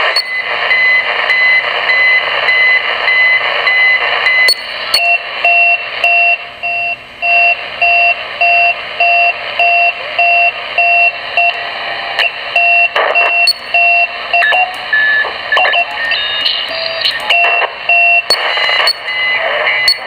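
Electronic beeping received on CB radio channel 39 (27.395 MHz) and heard through the receiver's speaker: a steady train of tone pips, about two a second, over radio hiss. It is an unidentified signal, which the listener guesses could be a channel marker, jamming or a practical joke.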